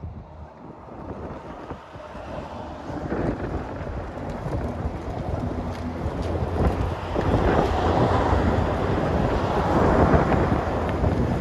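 Mercedes-AMG GT63 S's twin-turbo V8 engine and exhaust running as the car drives slowly up and past, growing steadily louder as it nears.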